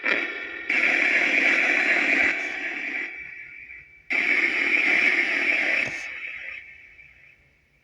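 Necrophonic spirit box app output: hissing white noise and chopped radio-like fragments drenched in echo and reverb. It comes on abruptly about a second in and again around four seconds, each burst fading out over a couple of seconds.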